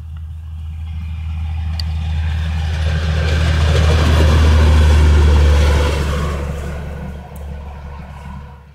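Diesel engine of a rail maintenance car (drezyna) running as it approaches and passes close by, with a steady low engine hum and wheels on the rails. The sound builds to its loudest about halfway through, then fades away toward the end.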